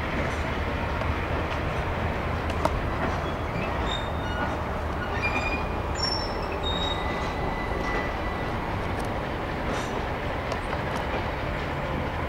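Passenger railroad cars rolling slowly past: a steady rumble of steel wheels on the rails with occasional clicks, and short high-pitched wheel squeals around the middle.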